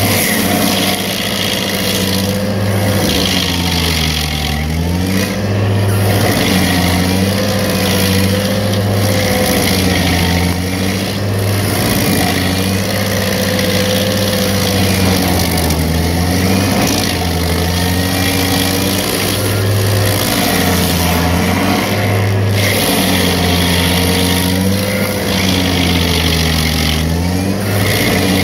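Vermeer 502 stump grinder's engine running at high throttle while its cutter wheel grinds into a tree stump, over a rough noise of wood being chewed. The engine pitch sags briefly every few seconds and recovers as the wheel is swept through the wood and takes load.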